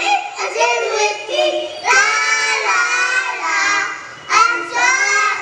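A small group of young children singing a rhyme together into a microphone, in sung lines with a short break near the end.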